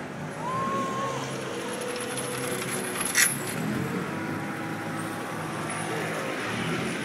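Canal tour boat's motor running steadily as the boat passes close by, with one sharp metallic clink about three seconds in.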